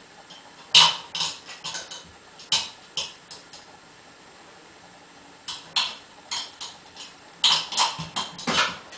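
A Jack Russell terrier's paws and claws clattering on the rungs of a metal loft ladder as it climbs, in four bursts of quick clicks and knocks with pauses between.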